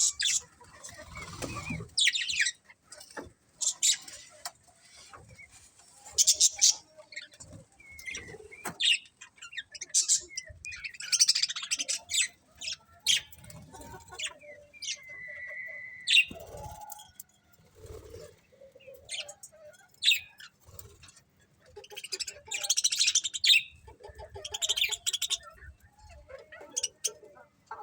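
A colony of small pet parrots chirping, with many short, high chirps and squeaky calls in irregular clusters. About two thirds of the way through, one bird holds a whistled note for about a second.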